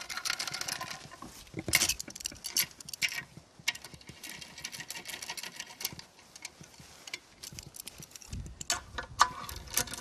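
Case bolts on an aluminium Honda transmission case being run down with a hand speed handle: irregular runs of quick metallic clicks and ticks as the socket turns and is moved from bolt to bolt. The bolts are snugged only enough to bring the case halves' mating surfaces together.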